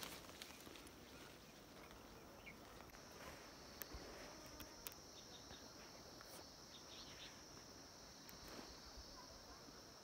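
Near silence: faint outdoor ambience with a steady high-pitched insect drone that comes in about three seconds in, and a few faint ticks.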